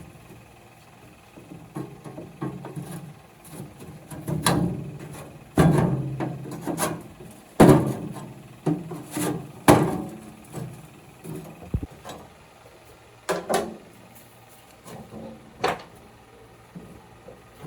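Irregular knocking and scraping of wood being handled and worked, with a cluster of sharper knocks in the middle and a few single knocks near the end.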